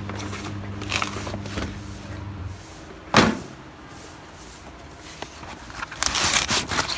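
A steady low hum that stops about two and a half seconds in, then a single loud knock, like something hard set down on the tractor's fibreglass hood. Near the end comes a second of crinkling plastic sacking as a hand handles a small cardboard box on it.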